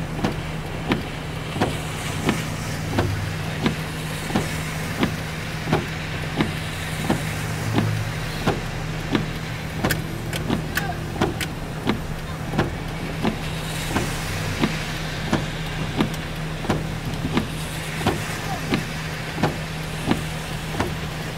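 Steady hum of a car's idling engine heard from inside the cabin under the hiss of heavy rain, with a sharp tick repeating evenly about every two-thirds of a second.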